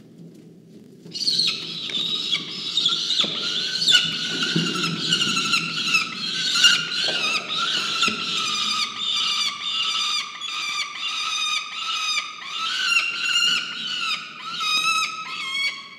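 Peregrine falcons screaming: a long, loud run of harsh, repeated calls, about two to three a second, starting about a second in and stopping just before the end, with a few scrabbling clicks underneath.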